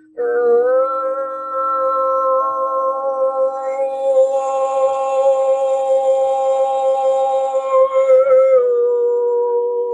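Vocal toning: a woman's voice holds one long note, sliding up into it at the start, then steps down to a lower note about eight and a half seconds in.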